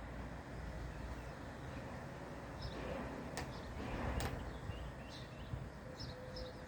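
Small birds chirping in short, scattered high calls that come thicker near the end, over a steady low background rumble. Two sharp clicks come in the middle.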